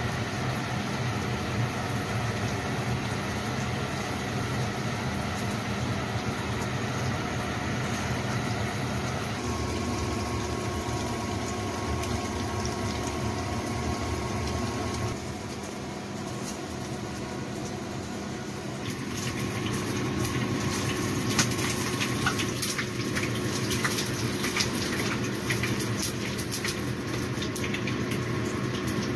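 Eggplant pieces frying in hot oil in a saucepan: a steady sizzle over a constant low hum, with sharper crackling from about two-thirds of the way through.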